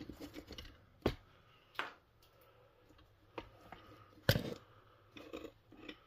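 A handful of irregular short knocks and scuffs in an enclosed room, the loudest about four seconds in.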